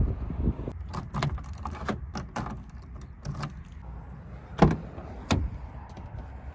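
A run of short clicks and taps, then the front door of a VW Caddy being opened: a loud clack of the handle and latch releasing about four and a half seconds in, and a second click a moment later as the door swings open.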